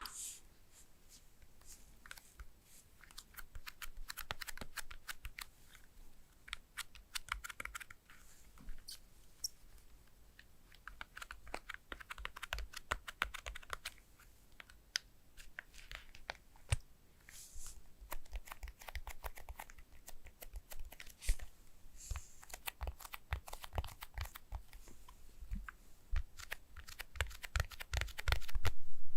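Close handling of a smartphone and its packaging: many light clicks and taps, with short bursts of scraping and rustling every few seconds.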